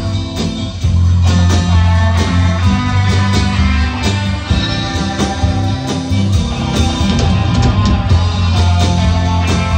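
Live rock band playing at full volume: electric guitar over drum kit and keyboards, with a heavy low bass line.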